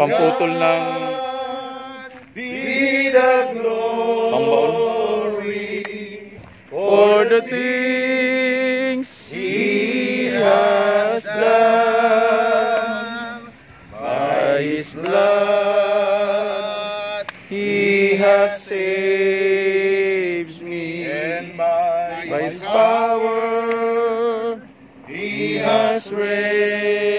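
A man singing a worship song in long held phrases with vibrato, pausing briefly for breath between lines.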